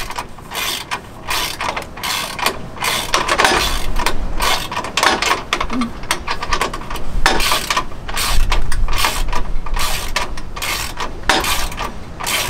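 Ratchet wrench clicking in quick, irregular runs of strokes as a nut is tightened down on a mounting bolt.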